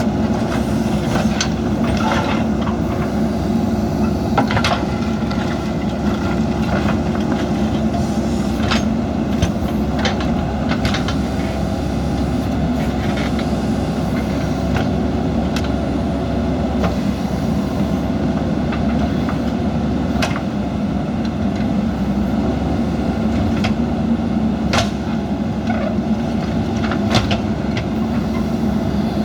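JCB backhoe loader's diesel engine running steadily under work, with scattered sharp knocks and clanks.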